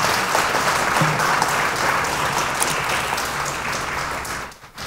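Audience applauding, steady, dying away about four and a half seconds in.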